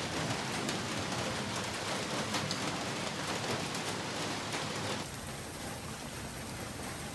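Heavy rain falling steadily, with individual drops ticking sharply close by. About five seconds in, the rain becomes slightly quieter and duller.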